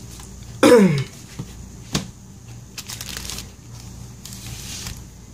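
Handling noises from an opened MacBook Air A1466 being tilted and shifted on a plastic-covered bench. A short, loud sound slides down in pitch under a second in, a sharp click follows about two seconds in, and then come two brief stretches of rustling, sliding noise.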